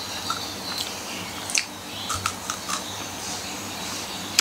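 Biting into and chewing a Kit Kat Chunky's chocolate-covered wafer close to the microphone, with a handful of short crisp crunches and the sharpest near the end.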